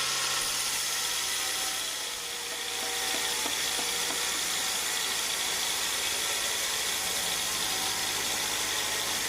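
Sawmill machinery running steadily: a constant mechanical noise with a high, steady whine over a low hum.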